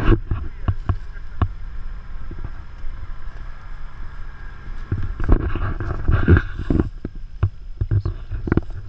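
Off-road vehicle's engine running steadily, stuck in a water crossing. Twigs and dry branches crackle and snap close by, with a few sharp clicks and some louder rustling patches near the middle.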